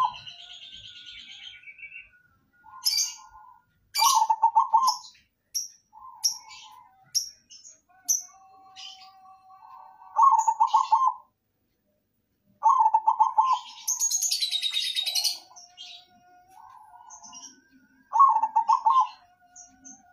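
Zebra dove (perkutut) cooing: loud trilled coo phrases repeated every two to four seconds, about five strong ones in all. Short, sharp high chirps fall between the phrases, and a longer high arching call comes about two-thirds of the way through.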